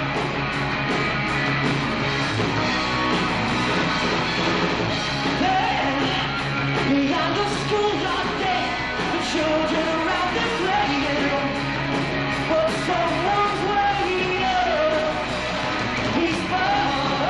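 Rock band playing live: drums, bass and electric guitar, with a singer's voice carried over the band.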